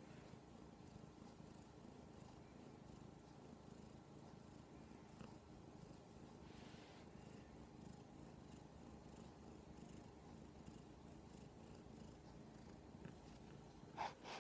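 Domestic kitten purring softly and steadily, with a brief rustle near the end.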